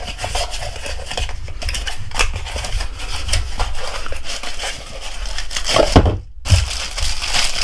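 Cardboard battery box being pried open by hand, its flaps scraping and creasing in a dense run of crackles and rubs. It breaks off briefly about six seconds in, and near the end the plastic-wrapped battery slides out with a rustle.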